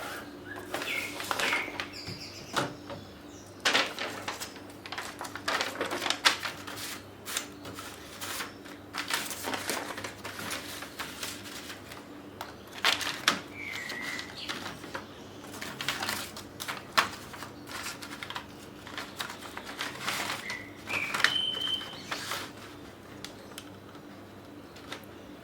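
Irregular clicks, taps and clatter of laptop parts being handled, fitted back together and plugged in, over a steady low hum. A few short bird chirps come in the background in the second half.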